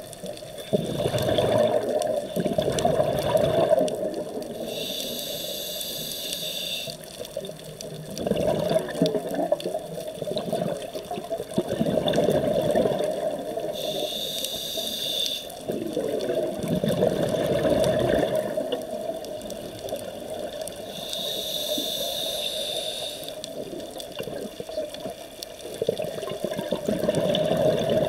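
Scuba diver breathing through a regulator, in a slow cycle of about three breaths: a short hiss on each inhale, and longer bubbling gurgles of exhaled air in between.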